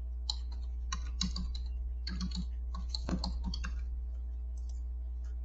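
Computer keyboard keys being typed: a quick irregular run of keystrokes for about three and a half seconds, then they stop. A steady low electrical hum lies underneath.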